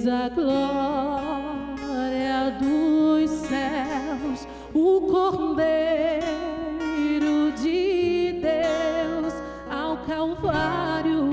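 A woman singing a gospel worship song, with long held notes that waver in pitch, accompanied by a strummed acoustic guitar.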